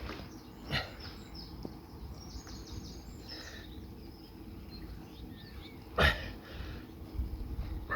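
Outdoor background with a steady low rumble and faint birds chirping, broken by two short sudden noises: a small one under a second in and a louder one about six seconds in.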